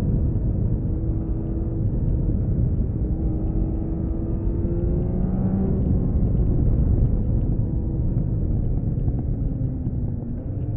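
Honda CBX 1000's air-cooled inline-six engine on stock exhaust, under way with heavy wind rumble. Its pitch climbs slowly for the first half, shifts about halfway through, then eases down through the second half.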